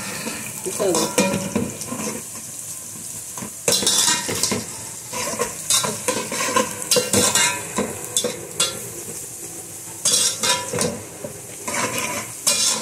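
Sliced onions and whole spices sizzling in hot oil in an aluminium pot, fried to a pale pink, with a metal spoon scraping against the pot in irregular bursts as they are stirred.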